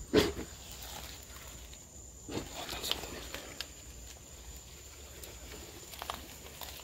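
A sharp thump just after the start, then scattered knocks and footsteps on an old floor.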